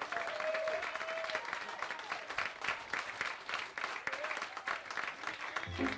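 Live audience applauding steadily, with a few rising-and-falling calls from the crowd. A piano starts playing just before the end.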